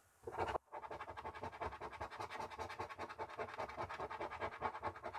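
A coin scratching the latex coating off a paper scratchcard in rapid, even back-and-forth strokes, starting about half a second in.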